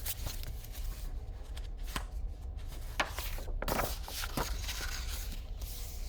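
Paper pages of a picture book being handled and turned: a dry rustling and sliding of paper, with several sharper flicks and snaps through the middle.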